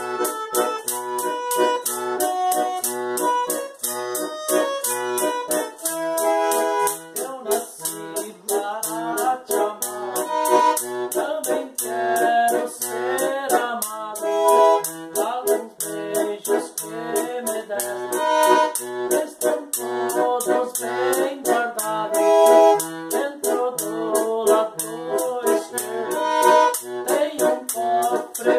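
Button accordion playing a song's melody and chords, with a hand-shaken percussion instrument keeping a steady beat. About eight seconds in, a man's singing voice joins.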